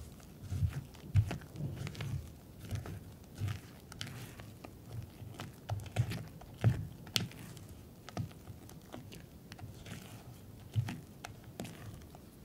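Yellow silicone spatula folding sifted flour into thick butter-and-egg pound-cake batter in a glass bowl: irregular soft thuds and squishes of the batter, with sharp clicks where the spatula knocks against the glass.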